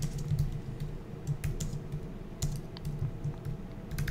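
Typing on a computer keyboard: irregular, quick key clicks.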